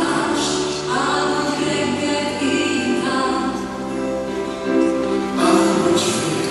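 Children's choir singing with long held notes, over steady low tones of an electronic keyboard accompaniment.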